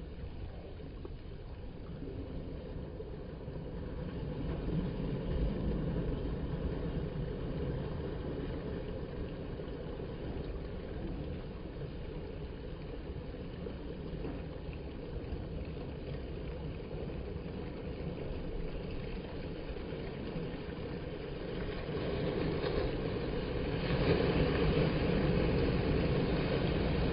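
Sea water surging and washing through a narrow channel in the rock platform, a steady rumbling wash. It swells louder near the end as a bigger wave rushes in and breaks into foam.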